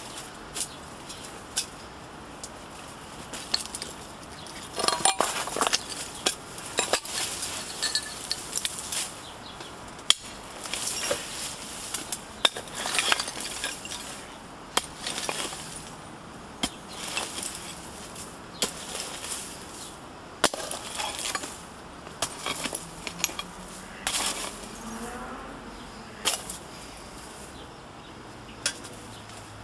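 A hand digging tool striking and scraping into packed rubble and trash, with irregular clinks and knocks of loose debris as it is pried loose.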